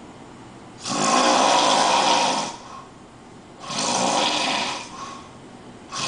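A person asleep snoring loudly: two long snores of about a second and a half each, a second or so apart, with a third starting near the end.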